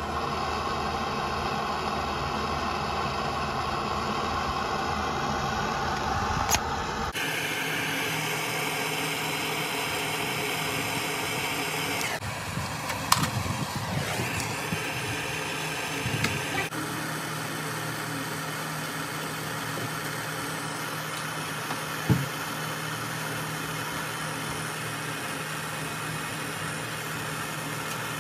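A machine running with a steady hum, with a few sharp knocks. The sound changes abruptly about seven, twelve and seventeen seconds in.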